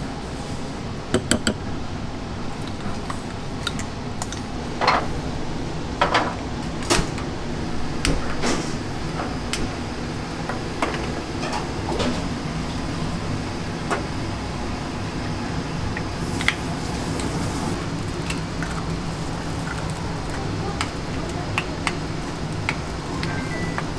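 Dishes and cutlery clinking now and then, a few sharp clinks and knocks over a steady low hum.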